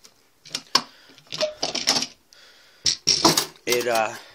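Clicks and light rattles from a camera and a bendy plastic tripod being handled and pulled free, with a brief muttered voice near the end.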